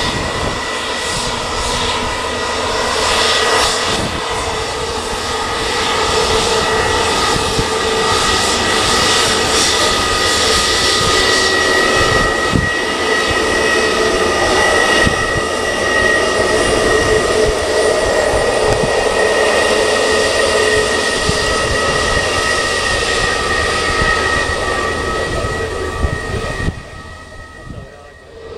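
Jet airliner engines running loud and steady, with a high whine held over a broad rush of jet noise, then dropping away suddenly near the end.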